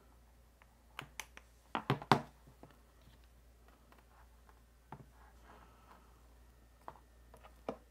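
Scattered small clicks and knocks of a USB cable and plug being handled and pushed into a smartphone's USB-C port and a power bank's USB port on a tabletop: a cluster of clicks between one and two seconds in, then a few single clicks.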